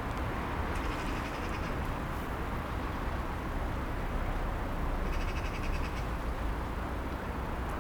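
A bird calls twice, each a short quick run of high notes: once about a second in and again about five seconds in. Under it runs a steady low rumble.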